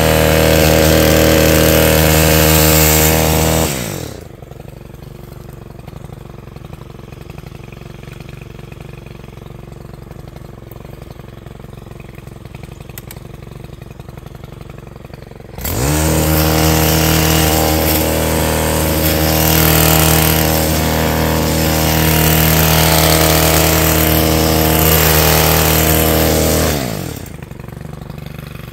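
Stihl KM 131 R KombiMotor's 4-MIX engine driving a hedge-trimmer sickle-bar attachment. It runs at full throttle, drops to idle with a falling pitch about four seconds in, and snaps back up to full speed about halfway through. It holds there for about eleven seconds, then drops to idle again near the end.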